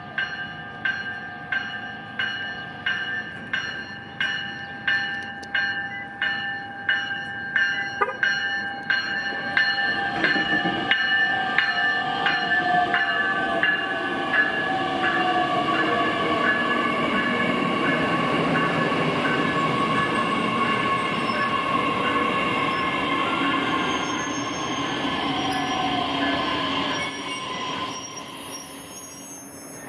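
South Shore Line electric bilevel commuter train running down the street. A warning bell rings about twice a second as it approaches, then the cars pass close by with a steady rumble and high, shifting wheel squeal. The noise dies down near the end.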